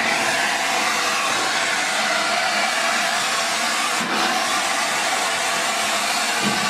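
A steam locomotive's steady, loud hiss of escaping steam.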